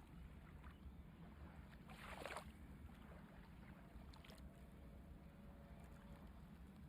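Near silence: a faint low rumble, with one brief soft rush of noise about two seconds in.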